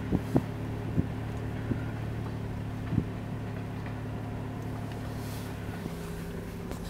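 Car cabin noise while driving on a snow-covered road: a steady engine hum and tyre noise, with a few light knocks in the first three seconds.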